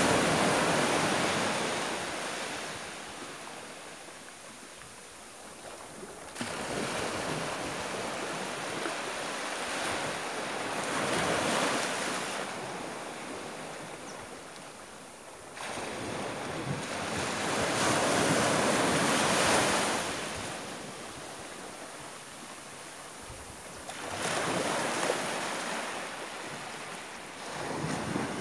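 Sea surf: waves breaking and washing in, the rushing noise swelling and fading several times, with a few abrupt jumps in level.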